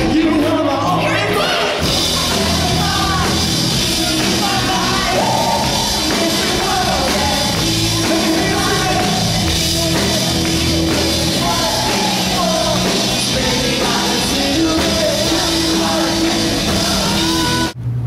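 A live rock band with singers playing a song, recorded from within the audience. It cuts off suddenly just before the end.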